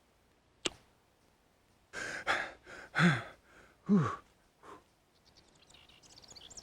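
A single sharp click, then a cartoon character's breathy straining grunts and gasps: several short exhalations, two of them dropping in pitch, the sound of heaving something heavy up by hand. Faint rapid bird chirps begin near the end.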